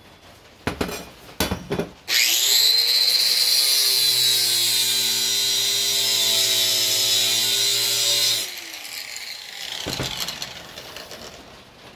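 A few knocks of handling, then an angle grinder starts, spins up and grinds steel off the heavy end of a lawn mower blade to balance it for about six seconds. It is then switched off and winds down in falling pitch.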